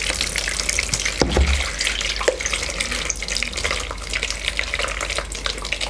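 Liquid splashing and trickling as the blended coconut mixture is strained through a sieve to extract the milk, with a dull knock about a second in.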